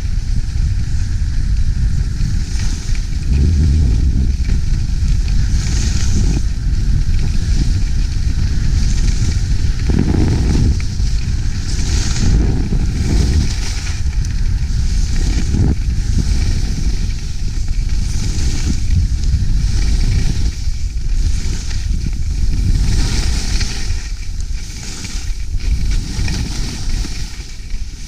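Skis carving on snow, a hiss that swells and fades about once every second or so with the turns, over a steady low wind rumble on the camera's microphone.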